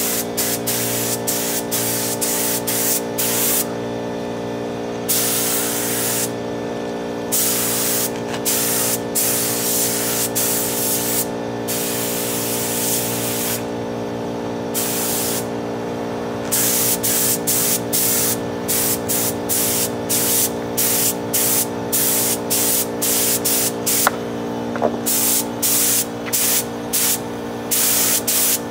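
Air spray gun hissing in repeated bursts, from a fraction of a second to about two seconds each, as the trigger is pulled and released to lay on red paint. A steady mechanical hum runs underneath.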